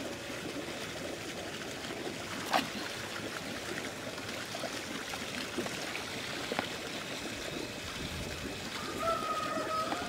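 Water running and splashing steadily in a concrete koi tank as it is pumped down, with a single sharp knock about two and a half seconds in.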